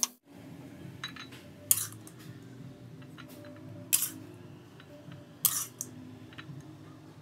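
Kitchenware clinking: four sharp clinks, a second or more apart, the loudest a little under two seconds in.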